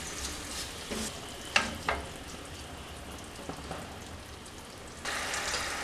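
Wooden spatula stirring a sticky mix of roasted coconut, nuts and sesame in jaggery syrup in a nonstick pan, with a low steady sizzle and scraping. Two sharp knocks of the spatula come about a second and a half in.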